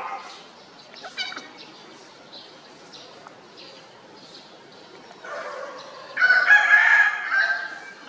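A rooster crows once, starting about five seconds in and lasting a couple of seconds; it is the loudest sound.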